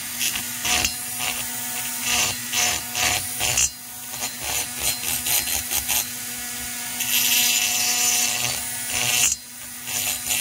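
A small high-speed rotary tool running steadily, its bit grinding in scratchy passes against the plated edge of a two-stroke chainsaw cylinder port to chamfer it. The grinding eases off briefly about four seconds in and again near the end while the motor keeps running.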